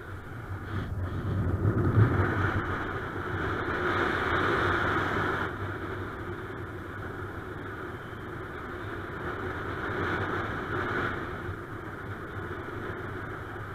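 Wind rushing over the microphone of a camera carried by a paraglider in flight, a steady rush that swells stronger about two seconds in and again near the ten-second mark.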